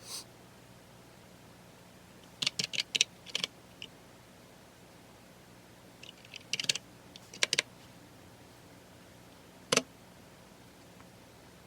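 Computer keyboard typing in two short bursts of keystrokes with pauses between, then one louder single keystroke near the end.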